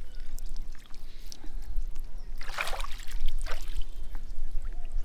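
Water splashing and sloshing, with a louder splash about two and a half seconds in and a smaller one a second later, over a steady low rumble.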